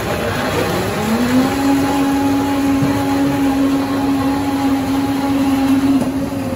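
Electric blender at a juice counter spinning up about a second in, then running at a steady pitch, over a steady wash of street traffic.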